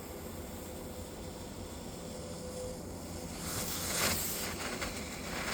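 Defective 10-shot magic Roman candle spraying like a fountain instead of firing its shots, giving a steady hiss that grows louder and harsher about three and a half seconds in.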